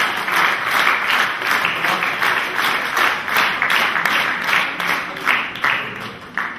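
Audience applauding, the clapping falling into a steady rhythm in time, about three claps a second, then thinning out and stopping near the end.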